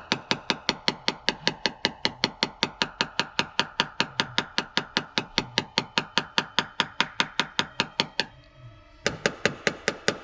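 Rapid, even light taps of a paintless-dent-repair tap-down tool on a car body panel, about six a second, with a faint metallic ring; the tapping pauses briefly about eight seconds in, then resumes.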